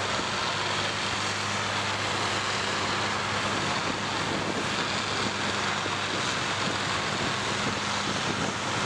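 Combine harvester engines running steadily with a constant low drone while the machines push against each other.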